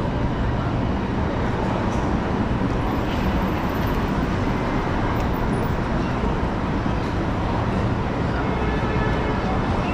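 Steady city street traffic noise: the running engines and tyres of passing vehicles.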